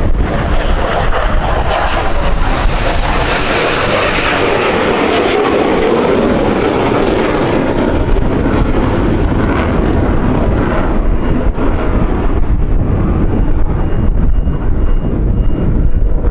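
Airplane passing, its engine noise swelling over a few seconds and then fading away, with a steady low wind rumble on the microphone underneath.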